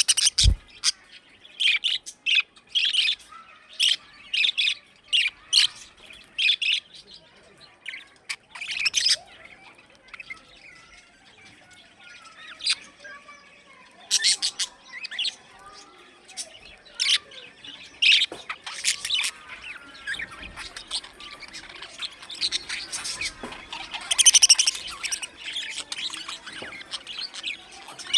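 A colony of budgerigars chirping: rapid clusters of short, sharp, high chirps, with a quieter stretch of softer warbling chatter about halfway through.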